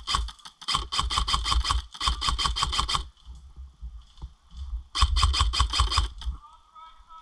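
Electric airsoft rifle (AEG) firing on full auto: rapid strings of sharp shots over a steady gearbox whine, in two long bursts about two seconds apart.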